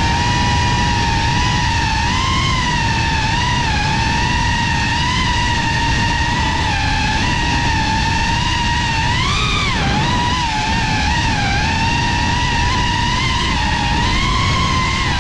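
GEPRC Cinelog35 cinewhoop's brushless motors and propellers whining at a steady pitch that wavers with the throttle, rising sharply for a moment about nine seconds in, over a low rush of wind and prop wash.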